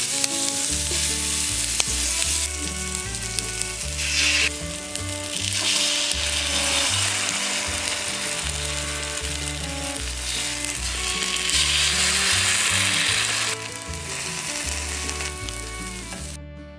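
Oil sizzling in a nonstick pan as tomato slices and egg mixture fry in it, over background music with a stepping bass line. The sound fades out near the end.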